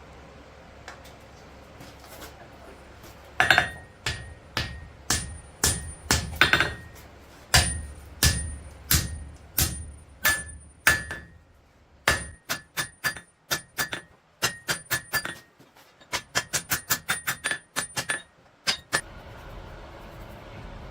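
Forging hammer striking steel on an anvil, each blow ringing. The blows come in bursts with short pauses, slow at first, then a quick run of about four a second before stopping.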